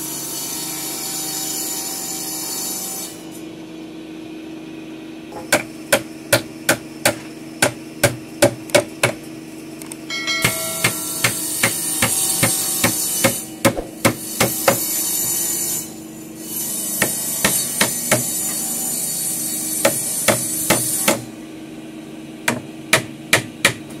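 Claw hammer driving nails into the edge of a gmelina wood counter panel: runs of sharp, quick blows, about three a second. Some stretches have a steady hiss of machine noise behind them.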